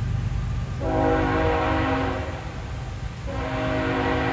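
Freight locomotive's air horn sounding two blasts for a grade crossing: a held chord from about a second in, then a second blast starting just past three seconds in and still sounding at the end. A steady low rumble runs underneath.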